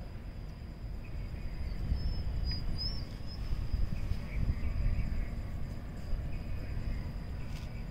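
Outdoor background sound: a steady high-pitched insect drone over a low rumbling noise, with a few faint bird chirps.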